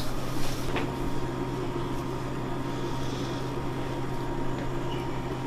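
Steady low hum with an even background hiss, and a small sharp click about half a second in.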